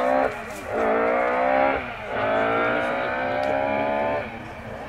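Historic rally car's engine at full throttle, its note climbing through the gears with two short breaks at upshifts. The engine note drops away a little past four seconds in as the throttle closes.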